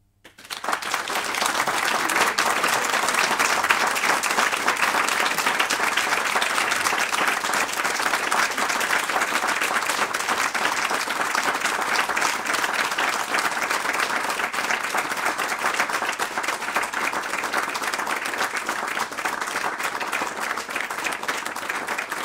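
Audience applauding: dense clapping that starts abruptly, swells within about a second, then carries on steadily and eases slightly toward the end.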